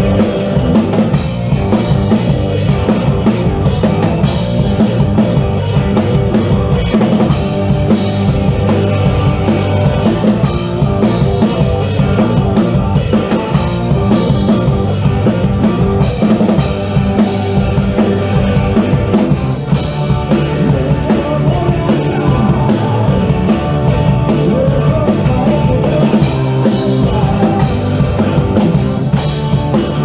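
Live rock band playing an instrumental passage: a drum kit up close, keeping a steady beat, over electric guitars, bass and keyboard.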